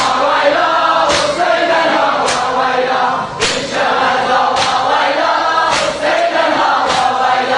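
A crowd of mourners chanting a noha in unison, with a sharp group slap about once a second from rhythmic matam chest-beating.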